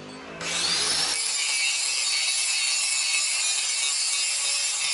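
Electric angle grinder spinning up with a rising whine about half a second in, then a steady high hiss as its abrasive disc grinds the flat of a steel machete blade.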